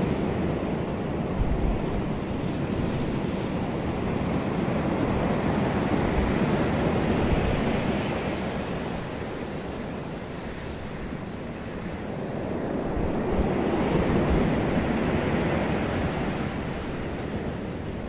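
Ocean surf breaking and washing up a sand beach in slow surges. It is loud for the first several seconds, eases off about ten seconds in, then builds to a second surge around fourteen seconds and fades.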